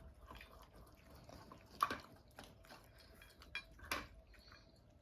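Cats eating wet food from plates, with a few sharp clinks of dishware. The loudest clink comes about two seconds in and another near four seconds.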